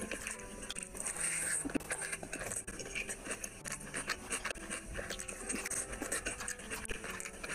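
Close-miked wet chewing and lip smacking of rice and curry eaten by hand, a dense run of short, sticky mouth clicks.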